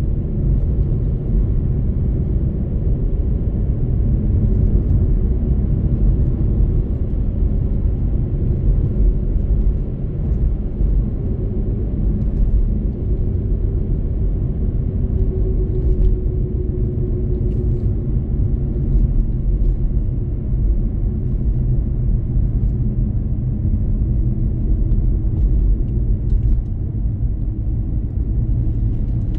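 Car driving at a steady speed on a wet asphalt road: a steady low rumble of tyre and road noise with the engine running underneath.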